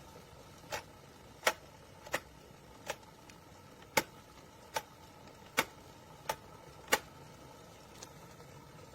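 Glass electric kettle heating water: sharp ticks or pops, roughly one every three-quarters of a second, over a faint steady hum.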